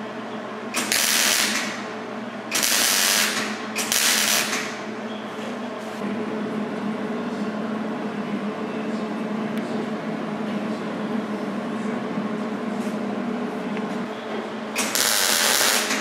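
MIG welder tacking a steel patch panel into a car door: short bursts of arc crackle, about a second each, three in the first few seconds and one more near the end. These are tack welds that hold the panel in place before it is seam-welded.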